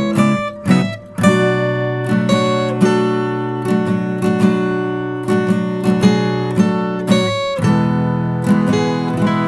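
Background music: an acoustic guitar picking and strumming chords at an easy pace, with a short break about a second in.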